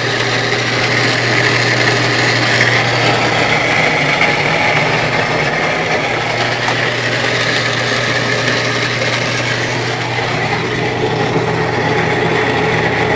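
Motor-driven malt mill running steadily, its rollers crushing malted grain from the hopper: a steady electric-motor hum under the continuous grinding rattle of the grain.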